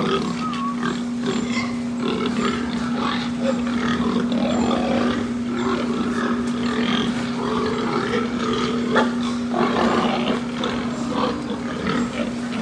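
Pigs grunting, with short irregular calls throughout, over a steady hum.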